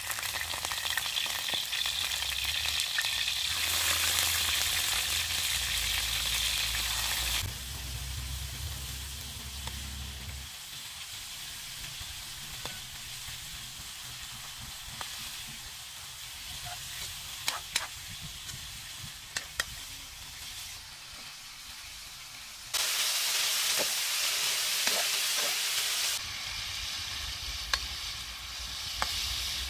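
Marinated chicken pieces sizzling as they fry in hot oil in a metal wok, with a metal ladle stirring and clinking against the wok a few times. The sizzle gets louder twice: a few seconds in, and again about three quarters of the way through.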